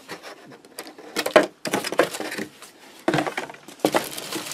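Cardboard box and packing paper being handled: a run of knocks and rustles as the box lid is lifted, the tissue packing paper is pulled out and parts are dug out of the box.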